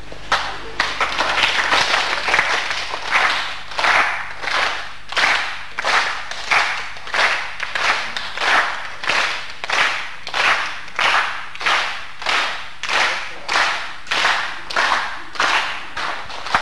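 A group of people clapping. The clapping is ragged for the first couple of seconds, then settles into a steady unison beat of about three claps every two seconds.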